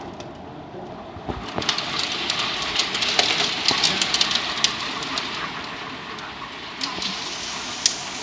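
Hailstorm: hail and rain pelting down, a steady rush full of sharp cracks from individual hailstones striking hard surfaces. It grows suddenly heavier about a second in.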